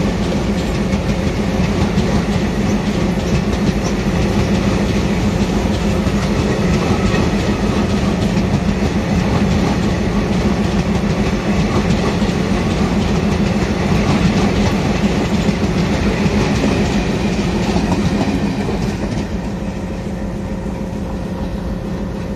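Passenger coaches of the Mahamana Express rolling past at close range, wheels clattering over the rail joints in a steady clickety-clack over a constant low rumble. The sound eases off in the last few seconds.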